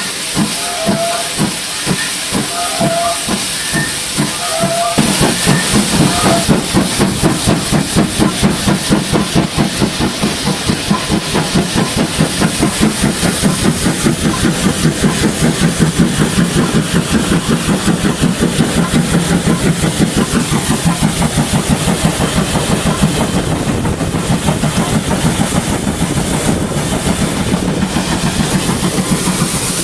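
Steam locomotive working hard, its chuffing exhaust beats steady and rhythmic over the hiss of steam. The beats grow louder and come faster about five seconds in as the engine gets under way.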